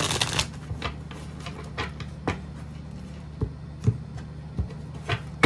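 A deck of tarot cards being shuffled and handled on a wooden table. A quick riffling flutter comes right at the start, then scattered light clicks and taps as the deck is split and the piles are set down, the sharpest tap near the end. A faint steady low hum runs underneath.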